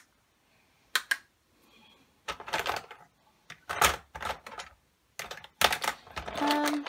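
Plastic makeup products (eyeliner pencils, tubes and pots) clicking and clattering against each other and a clear plastic storage tub as a hand rummages through it, in irregular bursts of rattling.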